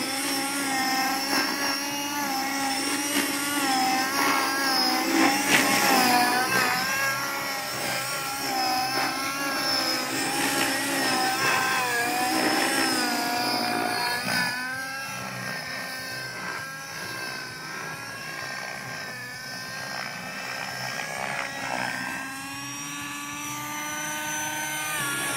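Align T-Rex 600 radio-controlled helicopter in flight, its rotor and drive giving a whine that wavers up and down in pitch as it manoeuvres. It is louder in the first half, drops back a little past the middle, and climbs in pitch near the end.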